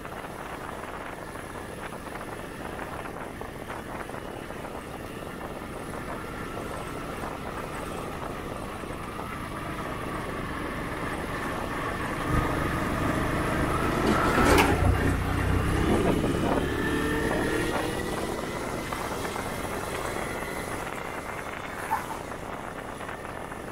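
A Honda CG 125 Titan's single-cylinder engine running as the motorcycle rides a dirt road. The sound swells about halfway through, with the engine pitch rising and falling and a sharp knock at its loudest, then settles back to a steady run.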